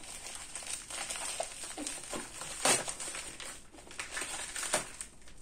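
Packaging bag being pulled open by hand, crinkling steadily, with a sharper crackle about halfway through and another near the end.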